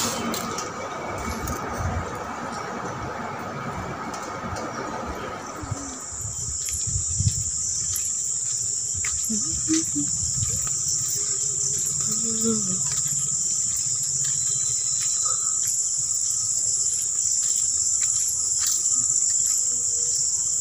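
Steady high-pitched chorus of insects, typical of crickets on a rural evening, that sets in about six seconds in after a noisier background and holds steady.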